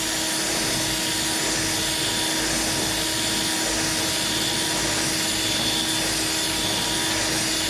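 Electric drill running steadily at one constant speed, spinning a rod end's heim ball to free it from its tight socket.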